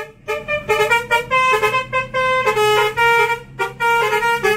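Bus 'telolet' musical horn (Basuri-type) playing a quick tune of short notes at changing pitches, stopping near the end, with a low steady hum underneath.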